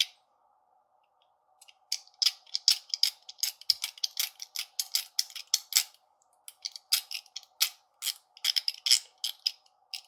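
Zirconium mechanical haptic coin, with its Teflon part fitted, being worked in the hand: fast runs of crisp metallic clicks, about four or five a second, with a brief pause around six seconds in.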